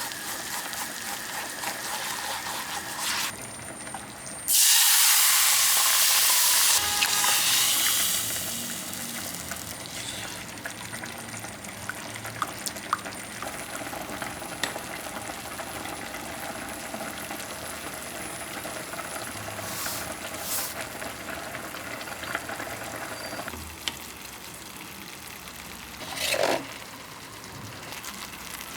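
Kitchen cooking sounds: food sizzling steadily in a frying pan, a loud rush of running water for about two seconds around five seconds in, and a few light clinks of utensils.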